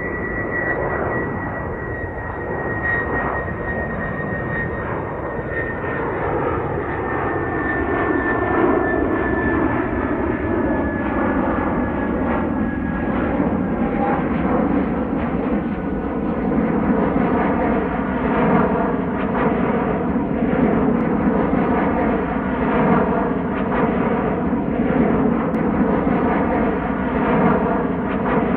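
Jet airliner engines passing overhead: a steady rumble that grows a little louder, with a high whine that slowly falls in pitch and fades out about halfway through.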